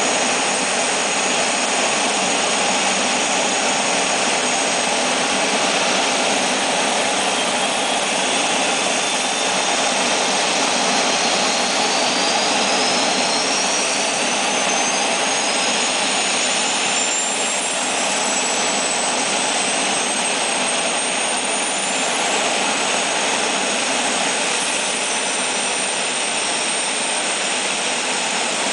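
Let L-410 UVP Turbolet's two Walter M601 turboprop engines running on the ground: a steady rush of turbine and propeller noise. A thin high whine rises slowly through the middle of the run.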